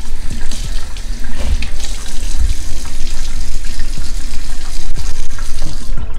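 Kitchen faucet running into a stainless steel sink, the water splashing over a lobster tail being rinsed under it.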